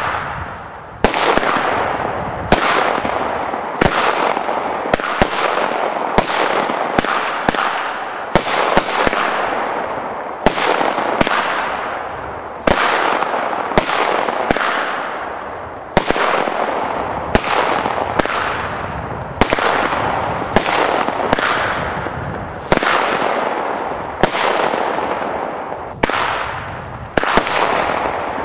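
A 45-shot, 20 mm consumer firework battery (cake) firing shot after shot, about one a second. Each shot is a sharp bang followed by a dense crackle that fades over about a second.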